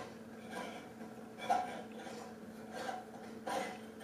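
A few short scrapes and rubs as a hand works inside a metal recessed ceiling-light can, fitting the LED retrofit light's socket adapter.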